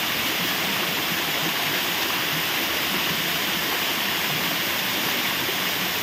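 Waterfall pouring down a steep rock face, a steady, unbroken rush of falling water.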